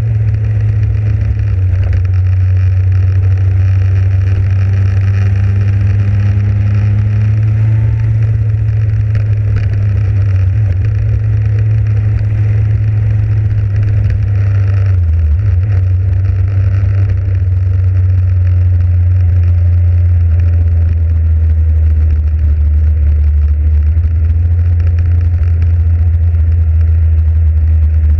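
Motorcycle engine running steadily while riding, with wind and road noise. About halfway through, the engine note drops to a lower pitch and holds there.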